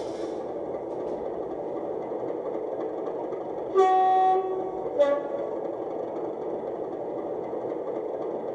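Sound-fitted model Class 37 diesel locomotive: steady engine sound from its small speaker, with the two-tone horn sounded about four seconds in, a lower note held for about half a second and then a short higher note.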